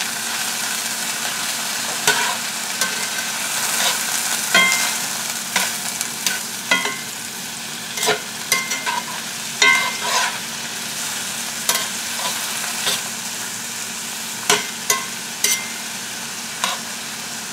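Sliced mushrooms sizzling in butter and oil in a cast-iron skillet, under a steady hiss. A metal spatula scrapes and knocks against the iron pan over and over as they are turned, some knocks ringing briefly.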